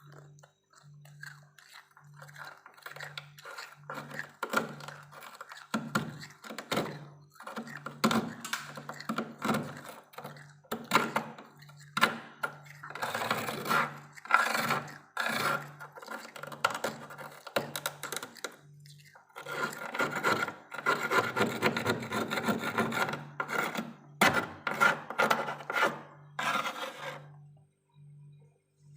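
A spoon scraping through thick frost in repeated short strokes, coming in bouts and stopping shortly before the end. A low pulsing hum runs underneath.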